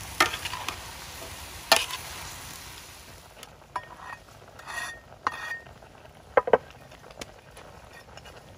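A metal spatula scraping and clanking against a large wok as cauliflower, chicken and carrots are stir-fried, with sharp clanks now and then over a sizzle that dies down after about three seconds.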